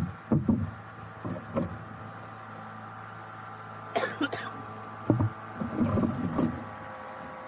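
A man coughing around four seconds in, among several short knocks and thumps of fishing gear being handled in a small boat; a steady low hum runs underneath.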